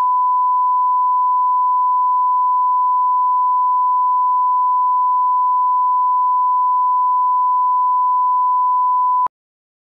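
Steady 1 kHz line-up test tone, the reference tone that goes with colour bars: one pure, unbroken beep that cuts off suddenly near the end.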